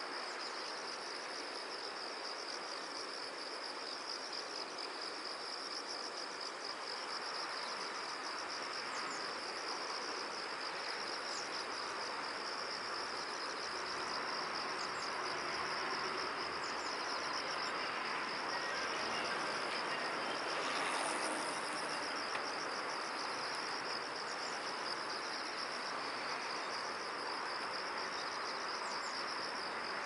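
Crickets trilling continuously in a high, finely pulsing chorus over a steady background hiss, with a few faint, short high chirps.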